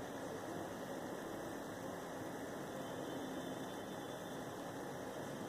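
Steady background hum and hiss of room tone, with no distinct event.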